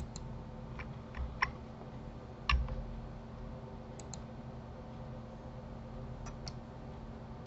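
Scattered clicks of a computer mouse and keyboard, single clicks with a close pair about four seconds in, over a faint steady hum.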